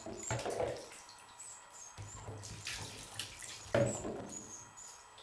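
Shallow water in a bathtub splashing and swishing as a hand scoops through it, in a few irregular splashes: one near the start, more in the middle and a sharp one about four seconds in.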